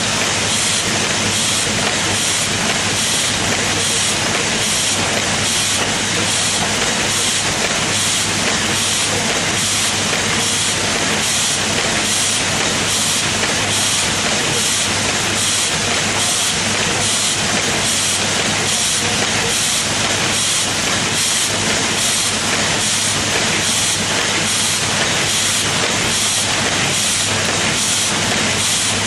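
LED making machine running continuously: a steady hiss with a regular stroke about twice a second.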